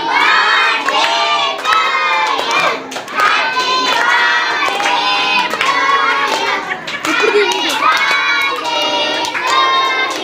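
A group of children's voices shouting and singing together in short phrases, with hand claps all through.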